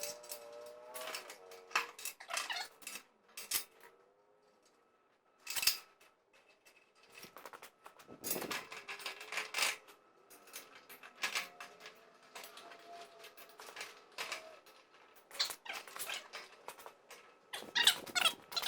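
Hand work on a tiller's metal parts: repeated sharp clicks and knocks, with intermittent wavering squeaks.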